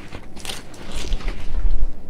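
Nylon plate-carrier shoulder strap being handled: scratchy rasps of fabric and hook-and-loop as the shoulder-pad cover is pulled open, with low handling thumps near the end.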